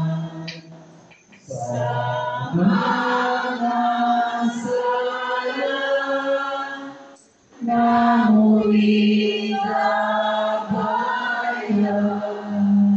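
Voices singing a church hymn in slow, held phrases, breaking off briefly twice, about a second in and again about seven seconds in.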